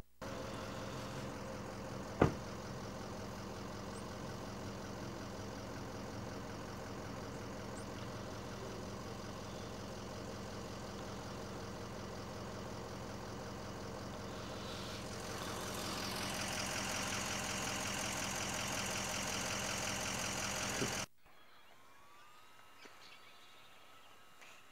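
A vehicle engine idling steadily, with a single sharp click about two seconds in and more hiss coming in about fifteen seconds in. The engine sound cuts off abruptly near the end, leaving only faint outdoor background.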